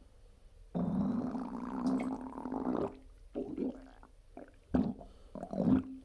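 Stomach and intestines gurgling right after a bowel movement: one long rumble of about two seconds, then several short gurgles near the end.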